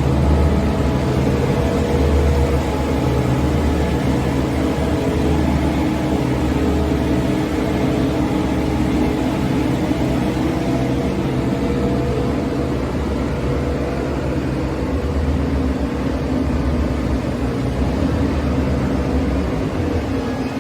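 A machine running steadily: a low, engine-like hum with several steady tones above it, unchanging throughout.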